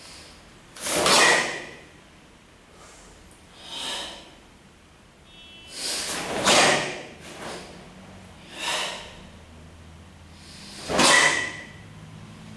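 A karateka performing the kata Suparimpei: about six sharp bursts of breath and uniform swish with his techniques, each under a second and a second or two apart, the strongest about a second in, midway and near the end.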